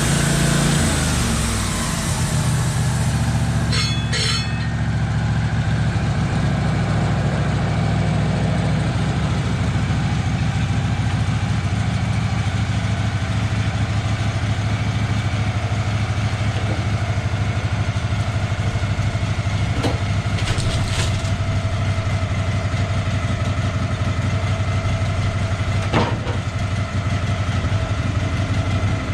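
An engine running steadily after its speed drops over the first second or two, with a few short sharp clicks scattered through.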